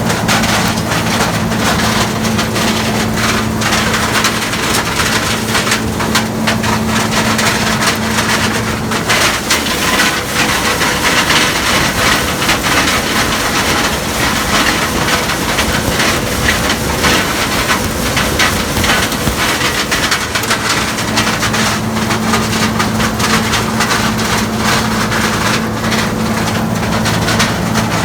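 Gleaner combine harvesting corn: a steady engine hum under a dense crackling, rattling noise of stalks and ears being taken in and crushed. The engine hum fades out for about ten seconds in the middle and then returns, while the crackling carries on.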